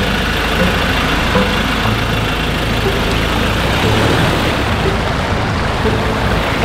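Ford Ranger pickup's engine running at low revs as the truck creeps slowly into shallow water, over a steady rushing noise.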